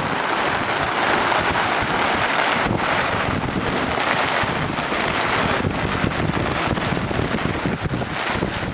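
Strong storm wind rushing steadily and buffeting the microphone in uneven gusts.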